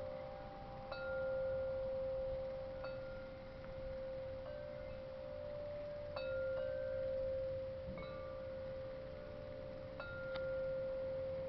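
Wind chimes ringing gently: a few soft strikes every second or two over tones that ring on for a long time.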